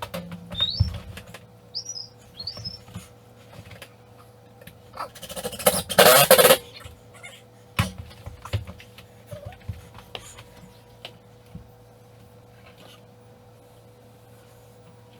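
Indoor work noises: a few short high squeaks in the first three seconds, a loud rasping burst just under a second long about six seconds in, and scattered knocks and clicks, over a steady electrical hum.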